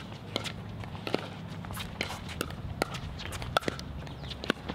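Pickleball rally: solid paddles striking a hard plastic pickleball in a quick volley exchange at the net, a run of sharp pops at irregular intervals. Footsteps and shoe scuffs on the hard court come in between the hits.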